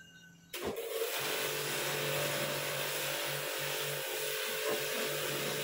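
Electric high-pressure washer starting about half a second in: its motor and pump hum steadily under the loud hiss of the water jet from the spray gun, which is aimed at a wheel.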